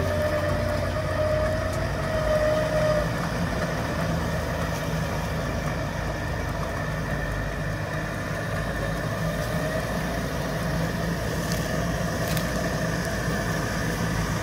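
Toyota Hilux ute's engine running steadily at low revs as its front-mounted electric winch hauls it up a steep bank, with a steady whine, strongest in the first few seconds.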